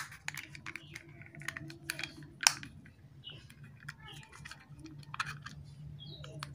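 Hard plastic clicks and taps as the two halves of an LED string-light controller box are pressed and snapped together, irregular, with one louder snap about two and a half seconds in, over a faint steady low hum.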